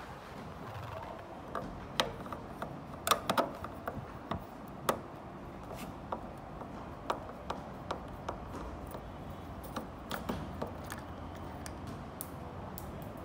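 Screwdriver working screws out of a TV's black plastic stand bracket: scattered clicks and small knocks of metal on plastic, with a quick cluster about three seconds in.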